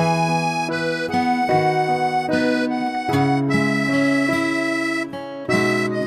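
Background instrumental music: a melody of held notes over sustained chords, with a brief break about five seconds in.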